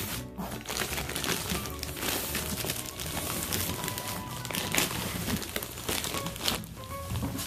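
Plastic wrapping crinkling and rustling as a plastic-wrapped air mattress is handled and pulled from its box, over background music.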